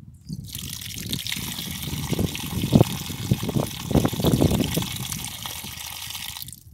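Water running from a vintage solid brass tap and splashing onto the ground. The tap is opened about half a second in and shut off abruptly near the end.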